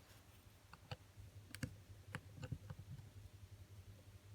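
Faint, light clicks and taps of small tools on the opened iPhone 6's metal and plastic internals, several scattered over a couple of seconds.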